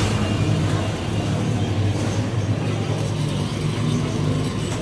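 Street traffic noise, with a steady low motor-vehicle engine hum.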